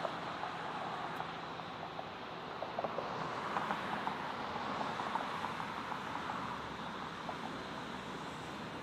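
Jet airliner engines heard as a steady rushing noise that eases slightly near the end, with light crackle.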